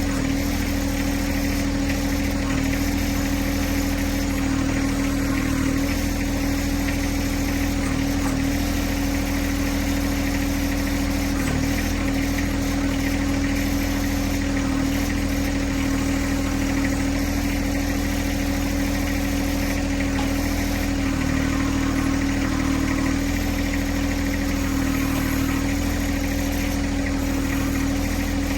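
John Deere 1026R compact tractor's three-cylinder diesel engine running steadily at idle, a constant hum with no change in speed.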